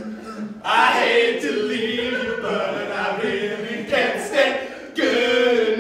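Three men singing doo-wop harmony a cappella, holding sustained chords; a louder new phrase comes in under a second in, with fresh entries about four and five seconds in.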